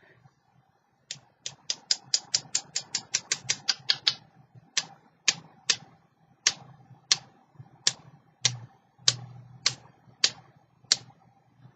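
Sharp clicking taps from splattering white ink onto a journal page: a quick run of about fifteen, then slower taps roughly two a second.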